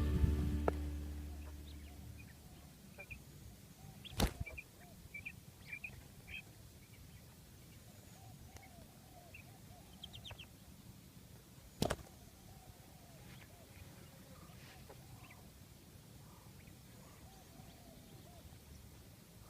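Background music fading out, then faint outdoor ambience with small birds chirping and softer, lower repeated calls. Two sharp clicks stand out, one about four seconds in and one about twelve seconds in.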